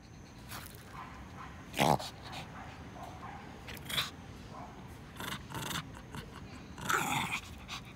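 Shih Tzu growling in play, a stick clamped in its mouth, guarding it in a tug-of-war game: a few short growls, the loudest about two seconds in and about seven seconds in.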